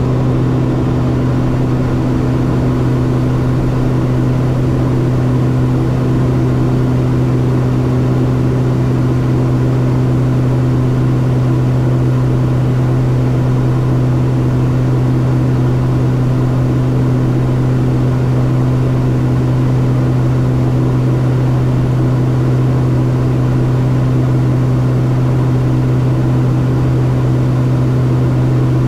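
Steady drone of a Beechcraft King Air F90's twin Pratt & Whitney PT6A turboprops and propellers, heard from inside the cockpit: a constant low hum at an even pitch.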